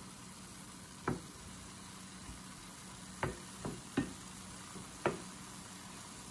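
Wooden spoon stirring ground beef and onions in a stainless steel pan, knocking against the pan five times: once about a second in, three times close together around three to four seconds in, and once more a second later. A steady faint hiss underlies the knocks.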